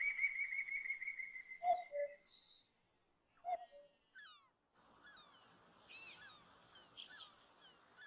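Wild birdsong: one bird's rapid, even trill for about the first two seconds, with short thin chirps and a low two-note call heard twice. About five seconds in, a quieter background of many small chirps takes over.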